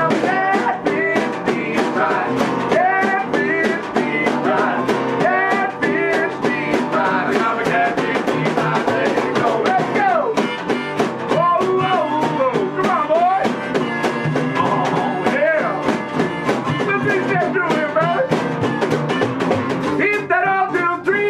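A folk-rock band playing an upbeat instrumental break, with a steady drum beat under a lead line of bending, sliding notes.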